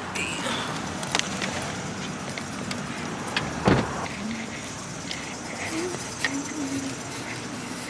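Street traffic noise, with cars passing along the road, and a single loud thump about four seconds in among scattered small clicks.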